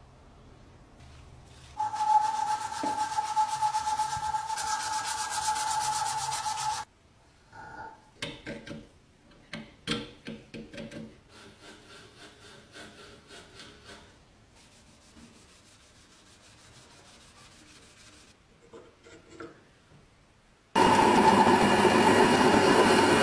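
A metal blade scraping along a wooden handle, a steady rasp with a ringing tone, followed by a series of short scrapes and knocks. Near the end a metal lathe starts up and cuts a steel rod, running loud and steady.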